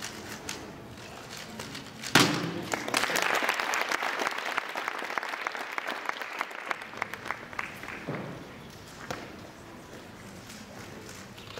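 Rubik's cube being turned fast, then a hand slapping down on the competition stop timer about two seconds in as the 3x3 solve finishes, followed by applause lasting about six seconds.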